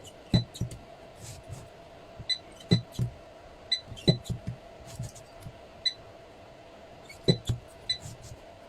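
Battery spot welder firing a series of welds onto the nickel strips of new 18650 cells in a power-tool battery pack: sharp snaps in irregular twos and threes, many with a short electronic beep, over a faint steady hum.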